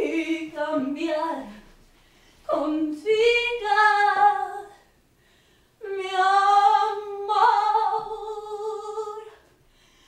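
A woman singing a slow melody with no accompaniment, in three long phrases of held, sliding notes, each followed by a short silence.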